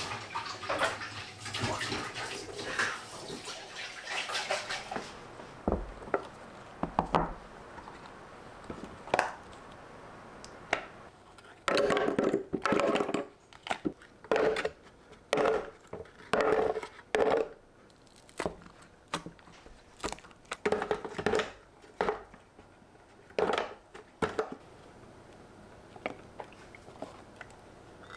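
Kitchen preparation sounds: water runs at first, then comes a long series of short knocks and scrapes of utensils against dishes.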